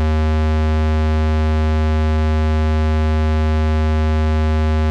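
Behringer 2600 Blue Marvin analog synthesizer sounding a steady low square-wave tone, rich in overtones, as the oscillator's pulse width is nudged by hand towards an exact 50%.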